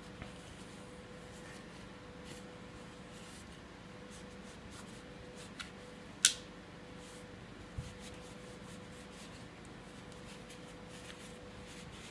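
A cloth rubbing over the polymer frame of a Glock 19 airsoft replica, wiping off silicone oil, with a few light clicks from the frame being handled; one sharp click about six seconds in is the loudest.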